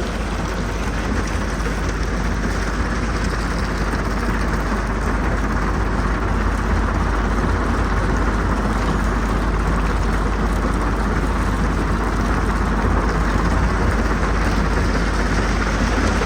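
Jonsson 1208 mobile jaw crusher running steadily while crushing rock, with the drone of heavy diesel engines under it.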